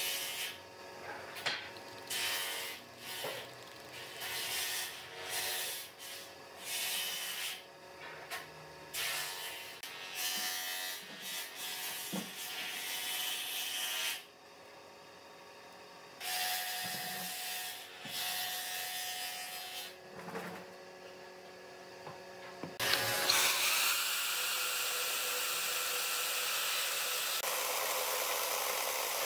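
Thick wooden planks are shifted and rubbed against each other and the workbench, with scattered knocks and scraping. About three-quarters of the way in, a corded electric chainsaw starts suddenly and runs at a steady high speed, cutting into a plank.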